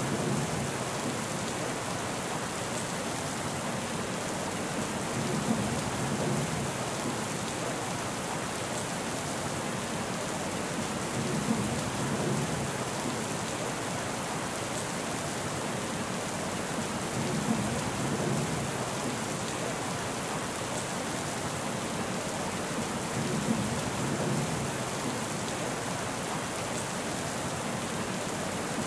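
Steady rain falling, an even hiss, with a low rumble of thunder that swells and fades about every six seconds, each rumble opening with a short sharp peak.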